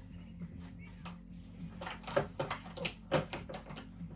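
Handling noise while cleaning chainsaw parts: a string of short knocks and scrapes, several in quick succession from about halfway, over a steady low hum.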